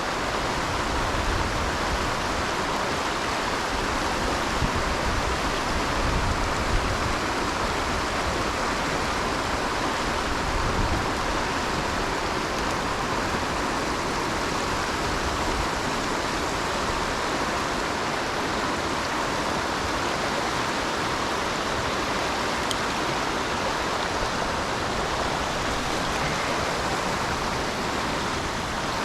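Fast mountain torrent rushing over rocks, a steady, even sound of running water.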